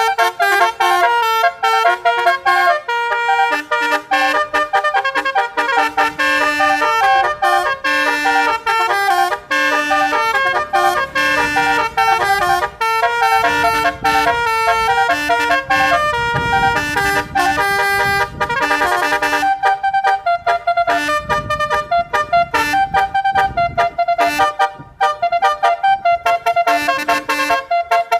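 A 12-note basuri multi-trumpet vehicle horn playing a fast melody, its brassy notes switching quickly from one to the next. A low rumble runs underneath for a stretch in the middle.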